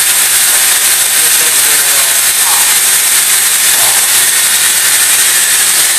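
A steady, loud hiss, even and without rhythm or pitch, strongest in the high range.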